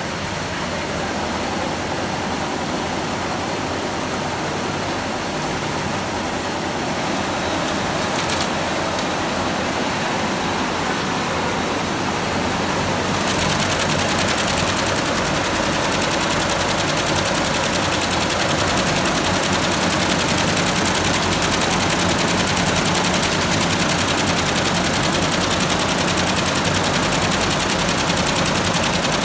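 Computerized embroidery machine running, its needles stitching in a fast, steady mechanical chatter that grows a little louder about halfway through.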